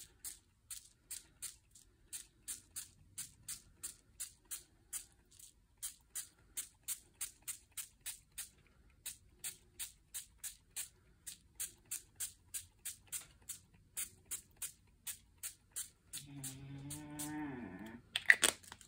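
Fine-mist spray bottle being pumped over and over, short hissy spritzes of water about two to three a second, wetting inked paper so the Distress ink runs and spreads. Near the end comes about two seconds of a low wavering hum, then one more louder spritz.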